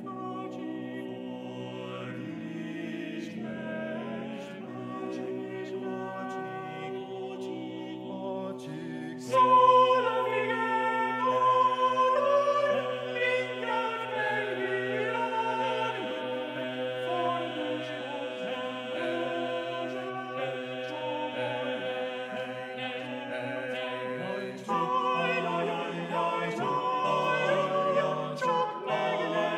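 Six-man male a cappella ensemble singing a Hungarian folk song arrangement in close harmony, with held chords that shift together. The singing gets suddenly louder about nine seconds in, eases back briefly near the end, then swells again.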